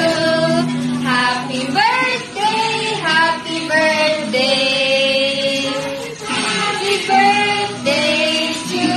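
Voices singing a song with music, in a high register, with bending phrases and one long held note about halfway through.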